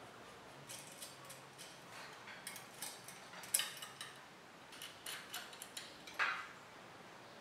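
Irregular light metal clicks and ticks as a stainless steel front rack is handled and fitted onto a bicycle fork, with two louder ringing clinks, one midway and one near the end.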